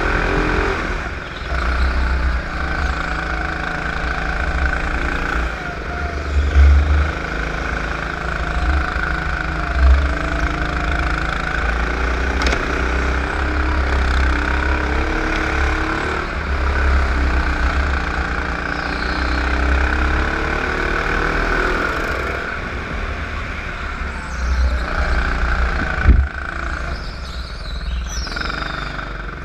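Superkart engine heard from on board, its pitch rising and falling as the kart accelerates down the straights and backs off for corners, over a heavy low rumble. A few sharp knocks cut through, the loudest about 26 seconds in.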